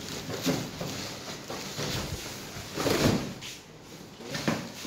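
Cardboard on cardboard: a large boxed telescope scraping and bumping against the sides of a corrugated shipping carton as it is pulled out, a series of short scrapes and knocks with the loudest about three seconds in.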